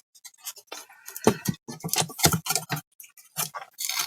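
Irregular clicks and light knocks of a circuit board being worked into the speaker base's plastic housing.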